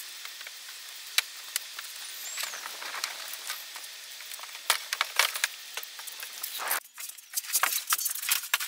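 Steady background hiss with scattered light clicks and taps from work on a plastic tugboat sandbox with a screwdriver. About seven seconds in the sound changes abruptly to a quicker run of clicks and knocks as the plastic hull is handled.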